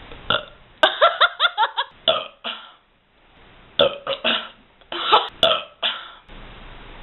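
A girl belching again and again, beer-fueled burps: a quick run of short burps about a second in, a brief pause, then two more groups of burps in the second half.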